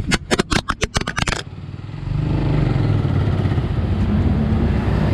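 A fast run of about a dozen sharp clicks in the first second and a half, then a motor vehicle's engine running steadily with a low rumble.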